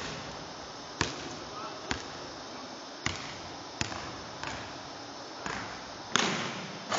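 Basketball bouncing on a hardwood gym floor: about seven sharp, irregularly spaced thuds, each followed by a short echo in the large empty gymnasium.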